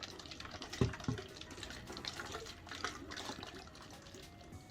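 Water sloshing inside a tornado-in-a-bottle, two plastic bottles joined neck to neck, as it is shaken by hand, with a couple of soft knocks about a second in.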